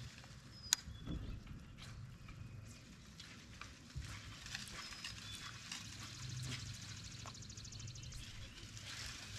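Light scattered clicks and knocks over a low, intermittent hum, with one sharp click less than a second in and a fast ratcheting buzz from about six seconds in until near the end.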